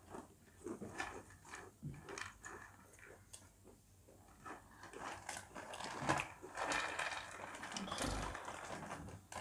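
Plastic Kurkure snack packets crinkling and rustling as they are handled and emptied, with the crunchy sticks rattling onto plates and being chewed. The crackles come in many short bursts, busier and louder in the second half.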